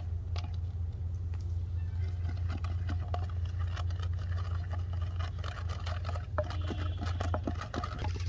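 A steady low hum under scattered light clicks and rustles as a plastic bottle rig and its line are handled.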